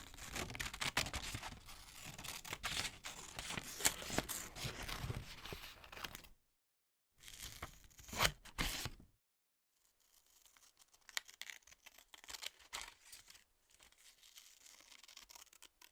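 Scissors cutting through paper, snipping and crackling in a long run for about six seconds. After a short pause there is a brief second cut, then quieter, sparser cutting near the end.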